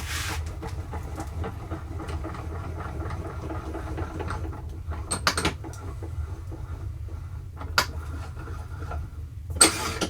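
Steady low hum with a few sharp metal clicks and scrapes, from a quick-release woodworking vise being handled and worked after its parts were greased with white lithium grease. The loudest scrape comes at the very end.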